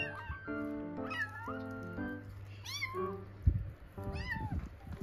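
Young kittens, about three and a half weeks old, meowing: about four high, arching meows, one every second or so, over background music. A short low thump comes about three and a half seconds in.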